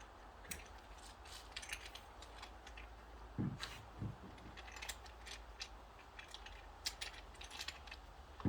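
Irregular light clicks and taps of small dent-repair tools and glue-pull tabs being handled, with two duller knocks about three and a half and four seconds in.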